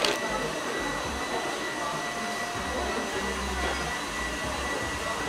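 A steady, even hiss, like rushing air, with a thin high whistle held through it.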